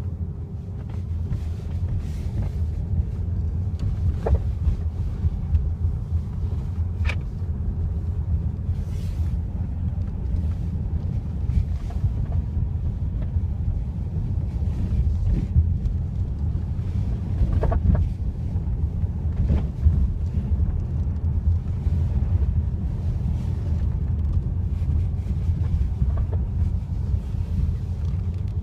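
2017 Kia Optima GT on the move, with a steady low road rumble and a few sharp, isolated knocks from the front end. These are the front knock the owner is trying to track down.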